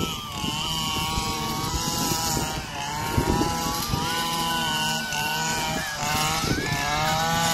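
A small engine running steadily, its pitch dipping and rising several times as the revs change.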